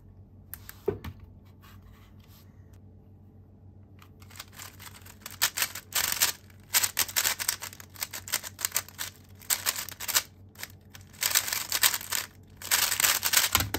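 GAN 12 magnetic 3x3 speed cube being turned fast during a solve: a dense, uneven run of plastic clicking and clacking that starts about four seconds in, after a quiet stretch.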